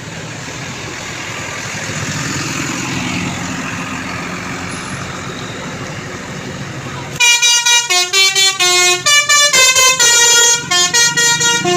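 Road traffic noise, then about seven seconds in a tour bus's Basuri telolet horn starts playing a quick tune, loud chords of short notes that jump from pitch to pitch.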